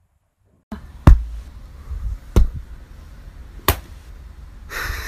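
Three loud slaps about 1.3 seconds apart: a person's hand and a large white dog's paw slapping down on a padded stool as they take turns, a hand-and-paw stacking game.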